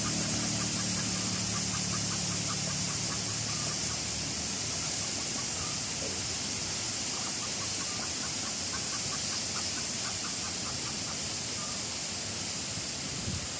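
Fowl clucking in short runs over a steady high-pitched hiss, while a low engine hum fades out in the first second or two.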